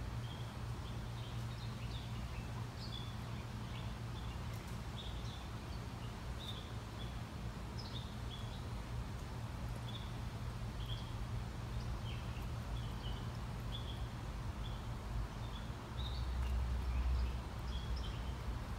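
Small birds chirping on and off over a steady low background hum, with a brief louder low rumble about three quarters of the way through.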